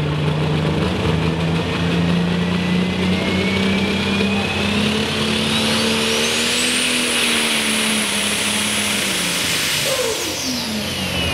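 Turbocharged diesel Super Stock pulling tractor engine running up at full throttle: its turbocharger whine climbs over several seconds to a high scream and holds there, then both the whine and the engine's pitch fall sharply near the end as the revs drop.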